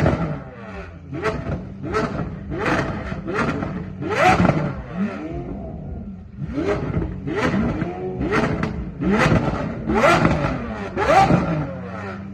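Engine revved in quick throttle blips, roughly one a second, over a steady idle, with sharp exhaust pops and crackles on each blip. There is a brief lull about six seconds in.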